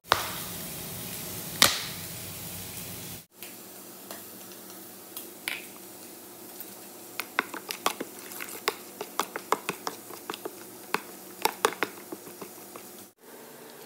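Lemon juice being pressed from a plastic hand squeezer over the marinated fish: small sharp clicks and drips, coming in a quick, irregular run in the second half.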